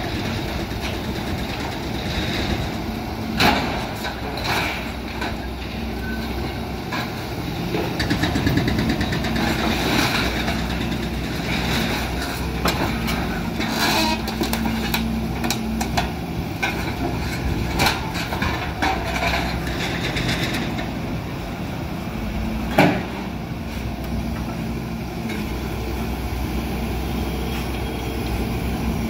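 Doosan excavator's diesel engine running steadily under hydraulic load while its demolition shear works steel structure. Scattered metallic clanks and scrapes of steel members come through, with a sharp bang about three and a half seconds in and the loudest one about 23 seconds in.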